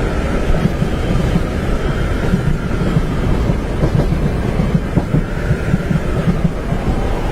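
Train running on rails, heard from inside a carriage: a steady low rumble with irregular low thuds, and a faint whine that rises and falls.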